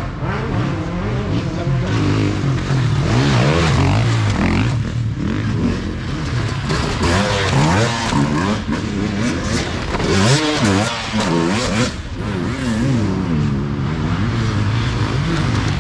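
Yamaha YZ250F four-stroke single-cylinder dirt bike engine being ridden hard: the revs climb and drop over and over as the throttle is worked, along with wind and terrain noise.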